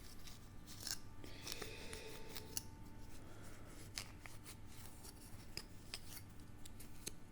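Faint rubbing with scattered small clicks: a cleaning wipe being worked over the clear plastic windows of a die-cast toy vehicle, with the model handled between the fingers.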